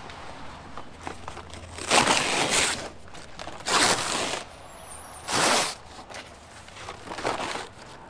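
Cardboard shipping wrap being torn open and peeled off a long plastic part, rustling and crumpling in four loud bursts, the first and longest about two seconds in.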